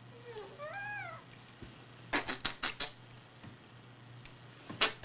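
A young baby's coo, one short call that rises and falls in pitch, early on. Then two quick runs of five or six short breathy puffs, one in the middle and one near the end.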